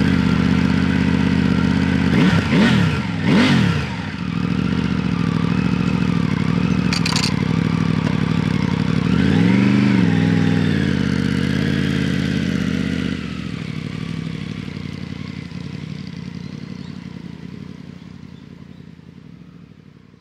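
Triumph Tiger 900 Rally Pro's inline three-cylinder engine running at idle, blipped twice in quick succession a couple of seconds in and revved again near the middle, then fading away over the last several seconds.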